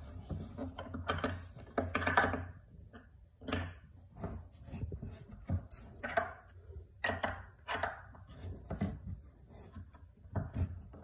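A metal bed-rail bracket and its screw being screwed into a particleboard bed panel: an irregular run of clicks, scrapes and light knocks of metal against the board.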